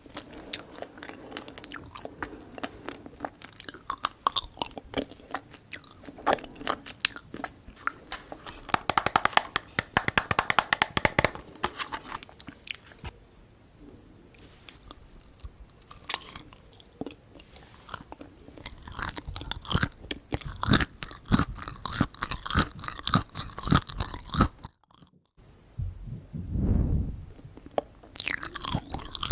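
Close-miked eating: a person chewing and biting into Korean sweets (candied figs and yanggaeng), with dense runs of crisp, sticky crunches and mouth clicks. A short silent gap comes just before 25 s, followed by a brief low sound.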